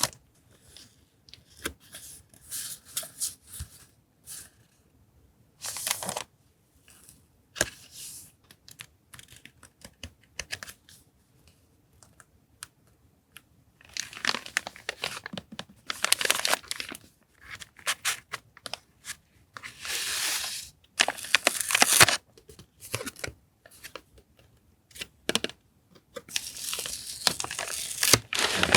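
Paper packaging rustling and crinkling as it is handled and torn open, in short scattered bursts with quiet gaps; the handling grows busier and longer about halfway through.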